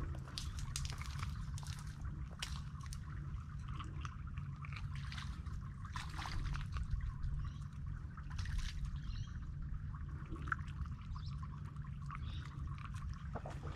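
Water trickling and dripping, with many small scattered clicks and crackles over a low steady rumble.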